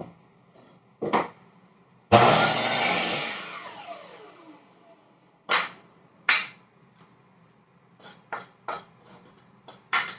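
A power tool runs in one short burst about two seconds in, its motor whine falling in pitch as it spins down. Sharp knocks and clicks of tools and parts being handled come before and after it.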